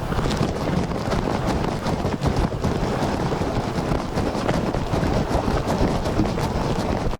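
Wind buffeting the microphone over the wash of sea surf, with a patter of small sharp ticks throughout. The sound cuts off abruptly at the end.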